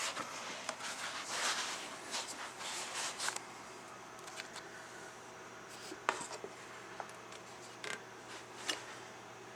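Creaking and scraping from an HPI Baja 5B 2.0 RTR 1/5-scale RC car as it is worked by hand: a busy run of rubbing squeaks over the first few seconds, then four or five separate short creaks and clicks.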